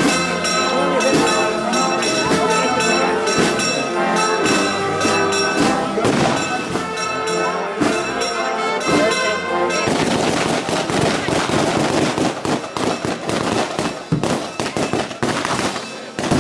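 Brass band playing a march; about ten seconds in, a long string of firecrackers starts going off, a rapid crackle of bangs that takes over from the music.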